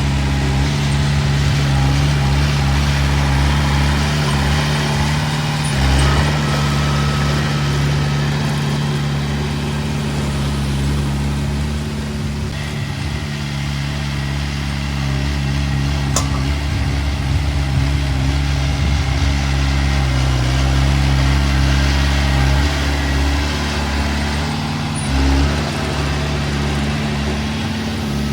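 Diesel engine of heavy earthmoving machinery running steadily, with brief changes in load about six seconds and twenty-five seconds in, and a single sharp click near the middle.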